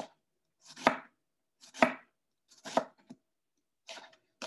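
Knife slicing a raw fennel bulb thinly, about one slice a second. Each stroke is a short crisp crunch through the bulb ending in a sharp tap.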